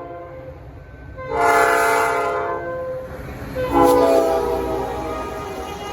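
Locomotive air horn sounding two loud blasts, the first about a second in and the second near the four-second mark, each dying away, over a low rumble of a train.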